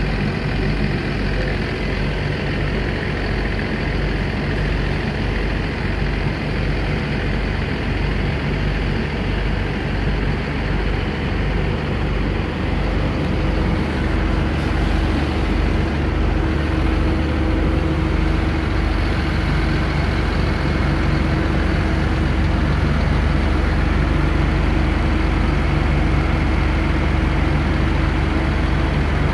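Diesel engine of a semi-truck tractor running steadily at low speed while it backs a double-trailer road train. The hum gets a little louder in the second half as the rig comes closer.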